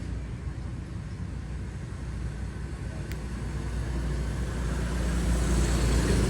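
A steady low rumble that grows louder toward the end, with a single faint click about three seconds in.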